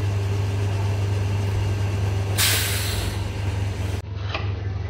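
Electric foundry sand mixer running with a steady low hum. About two and a half seconds in, a short loud hiss; near the end, a few light clicks over the hum.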